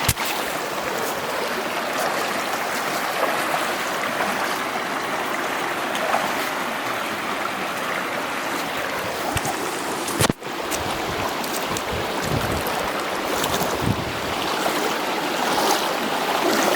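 Steady rush of a shallow river or stream being waded across, with a brief break about ten seconds in.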